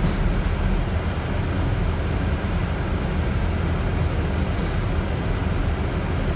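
Inside a moving bus: steady low rumble of the bus's engine and road noise.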